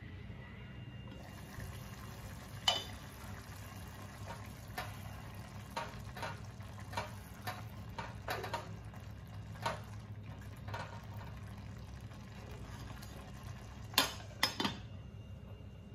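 Tomato rice simmering in a pot, stirred with a spatula that taps and scrapes against the pot in a string of short clicks. Near the end the glass pot lid clinks twice as it is set back on.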